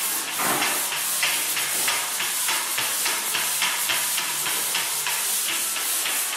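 Drywall pole sander with fine 120-grit sandpaper scraping back and forth over dried joint compound, a rasping hiss in quick even strokes, about three a second. This is the finish sand of a taped flat seam.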